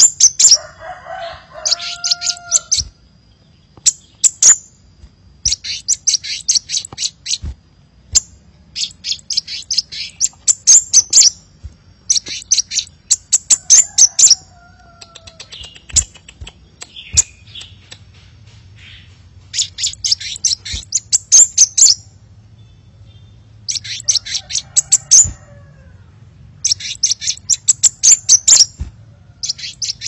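Crimson sunbird song: bursts of rapid, sharp high notes, each one to two seconds long, coming every few seconds, with a few lower whistled notes between them. Under it runs a low steady rush of flowing water.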